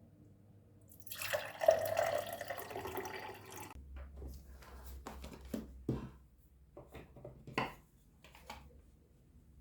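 Water running, likely from a tap, for about two and a half seconds, then a series of light knocks and clinks.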